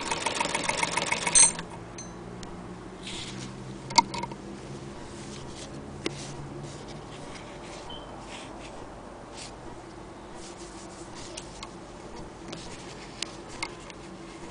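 Singer Model 99K hand-crank sewing machine stitching through denim: a fast, even mechanical clatter that stops abruptly about a second and a half in. After that come quiet handling of the cloth and machine, with scattered sharp clicks, the loudest about four seconds in.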